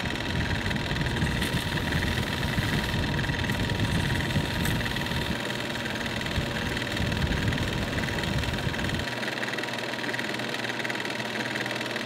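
Small metal lathe running steadily, spinning a short steel rod while a hand file and then abrasive cloth are worked against it. The low rumble thins out about nine seconds in.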